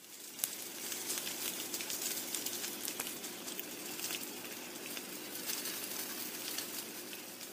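Crackling sound effect: a dense run of small clicks over a steady hiss, with a low hum beneath.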